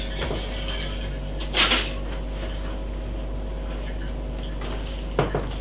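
A short, loud scraping rustle about a second and a half in and two quick knocks near the end, over a steady electrical hum.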